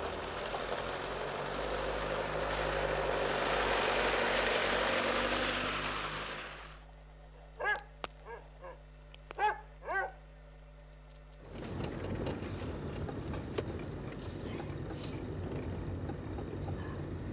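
Volkswagen Golf driving along a snowy road: engine and tyre noise swell and fade over the first six seconds. Then it goes quiet except for a dog giving about five short yips. From about eleven seconds in, steady engine and road noise is heard inside the car's cabin.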